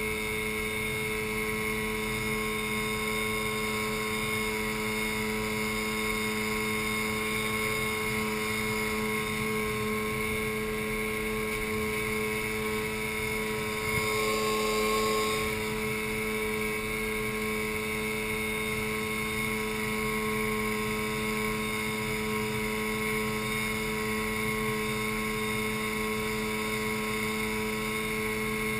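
Outboard motor of an inflatable dive boat running at a steady cruising speed, an even hum that does not change pitch. About halfway through there is a brief knock and a rush of spray as the boat hits a wave.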